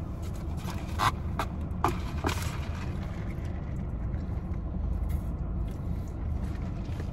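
Steady low rumble inside a car's cabin, with a few sharp clicks and taps about one to two and a half seconds in, from drinks and plastic cups being handled.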